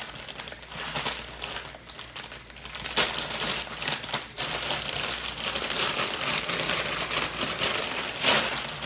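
Plastic packet of dried noodles crinkling and rustling in irregular bursts of crackles as it is handled and opened and the noodles are pulled out.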